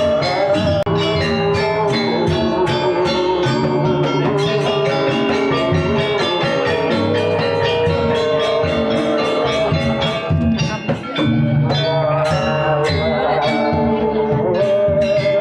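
Balinese gamelan music: fast, even strikes on metal percussion over held ringing tones.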